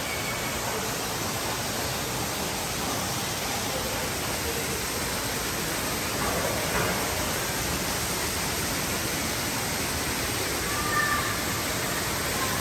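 Steady rushing of a waterfall, with faint voices now and then in the background.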